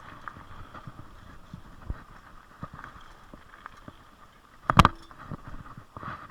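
Old BMX bike being ridden, with scattered light rattles and clicks from the frame and chain. About five seconds in comes a single loud, sharp clank.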